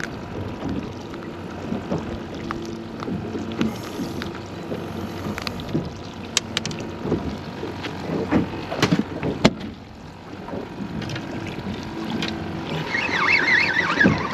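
Small boat rocking at drift, water slapping the hull under a faint steady hum, with scattered sharp clicks and knocks as a snapper is handled and a rod is moved about the fiberglass deck.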